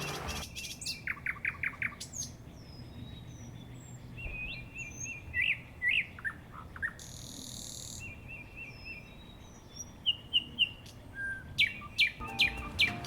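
Small birds chirping and calling in quick series of short, sliding notes and trills. A brief hiss is heard about seven seconds in.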